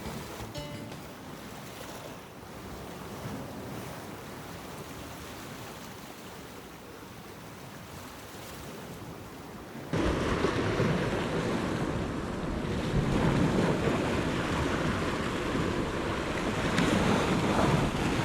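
Sea waves washing against the rocks with wind buffeting the microphone; the sound is fainter at first, then cuts suddenly to much louder surf and wind about ten seconds in.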